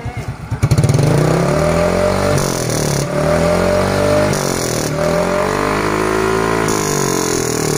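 Yamaha Fino scooter's single-cylinder four-stroke engine revved loudly through a hollowed-out ('bobol') aftermarket muffler, jumping up sharply about a second in and then rising and falling in pitch several times.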